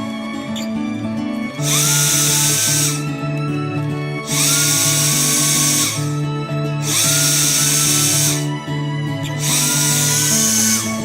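Power drill-driver run in four short bursts, each just over a second, its motor spinning up with a rising whine and then holding speed, under background music.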